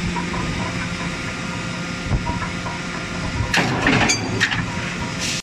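Forging-shop machinery running with a steady hum. About three and a half seconds in comes a second or so of metallic clattering, typical of hot forgings tumbling into a steel bin.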